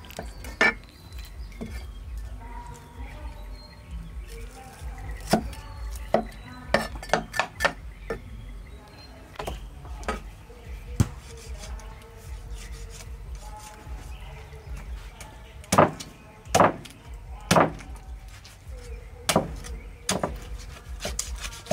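Meat cleaver chopping through a raw pork leg on a thick wooden chopping block. About fifteen sharp chops land at irregular intervals, with a quick run of several in a row and the loudest blows in the second half.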